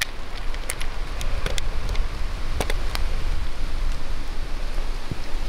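Rain falling in woodland with scattered sharp drips and clicks, and footsteps rustling through wet undergrowth, over a low rumble of wind on the microphone.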